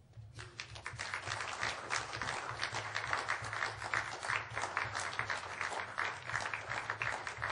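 Audience applauding, the clapping starting a moment in and carrying on steadily.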